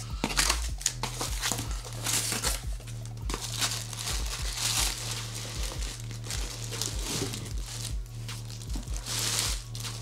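Clear plastic bag crinkling and cardboard box flaps rustling as a boxed statue is pulled out of its shipping box, in repeated handling bursts. Background music with a steady bass beat plays underneath.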